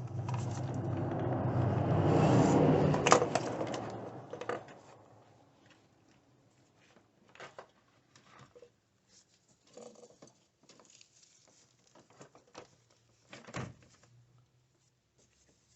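A rush of noise that swells and then fades over the first four seconds, with a sharp click near its peak. After it come scattered light clicks and knocks of battery parts being handled, and one louder knock near the end.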